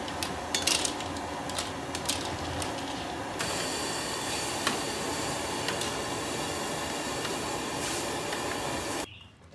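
Steel wok of broth boiling hard over a strong burner flame, a steady hiss, with a metal ladle clinking and scraping against the wok during the first few seconds. After about three seconds the hiss becomes smoother with only the odd click, and it cuts off just before the end.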